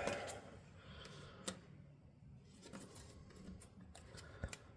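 A few faint, sparse metal clicks and taps as small parts of a 1/4 inch ratchet head are handled during reassembly, the clearest about a second and a half in and two close together near the end.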